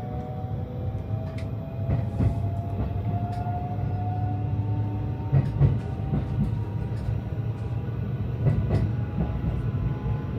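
Electric train's motors whining, the whine rising slowly in pitch for the first few seconds and then holding steady, over a low rumble with scattered clicks from the wheels and track. This is the sound of the train gathering speed.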